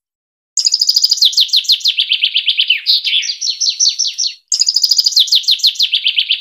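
Recorded songbird song in a fast, tightly packed burst of chirps, about ten notes a second. The chirps start high and then drop to lower, downslurred notes. After a brief break about four seconds in, the same phrase starts again.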